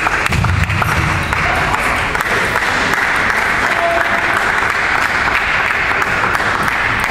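Spectators applauding steadily, a dense clatter of many hands clapping after a point in a table tennis match.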